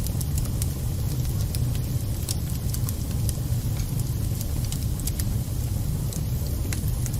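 Wood fire burning in a fireplace: a steady low rumble of the flames with scattered sharp crackles and pops from the burning wood and embers.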